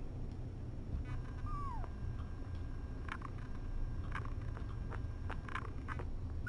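A young kitten gives one short mew that falls in pitch, about a second and a half in, followed by a few short faint clicks.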